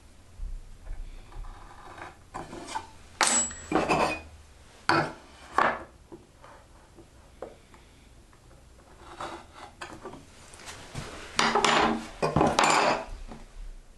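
A hand tool rasping and rubbing on wood in a few separate strokes, with a group of short strokes in the first half and longer, louder ones near the end.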